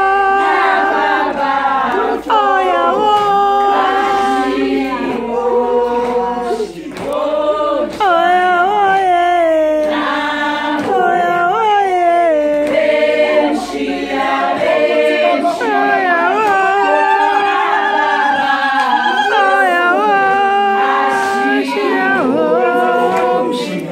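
A group of men's and women's voices singing a lively song together without instruments.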